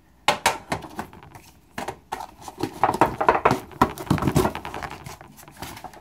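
Clicks, knocks and scrapes of a metal gift tin being handled and its lid worked open.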